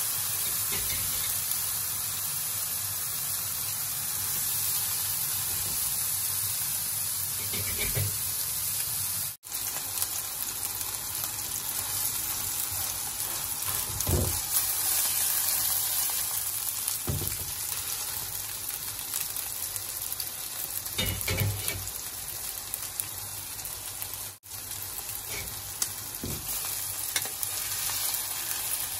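Ribeye steak sizzling in olive oil in a hot non-stick frying pan, a steady hiss, with a few knocks as metal tongs shift the meat in the pan.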